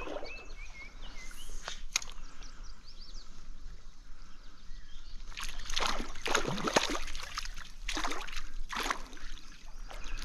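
Stream water sloshing and splashing, with a run of swishing splashes a little past the middle. Birds chirp faintly near the start.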